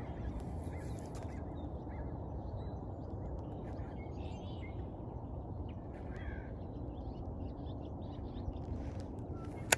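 Faint bird calls a few times over a steady low rumble, with one sharp click near the end.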